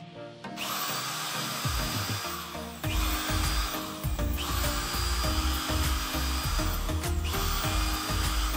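Small electric drill with a thin bit drilling into a laptop's hinge mount, running in several stretches with short breaks between them, over background music.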